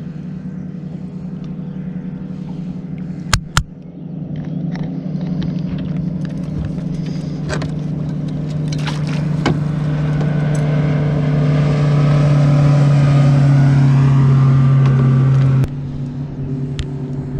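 Boat motor running steadily with a low hum, growing louder about two thirds of the way through and dropping off suddenly near the end. Two sharp knocks about three and a half seconds in.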